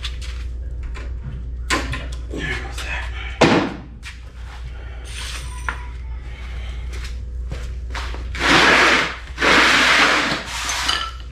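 Hands-on work at the engine: scattered clicks and a sharp knock about three and a half seconds in, then two loud stretches of scraping noise, each about a second long, near the end. A steady low hum runs underneath.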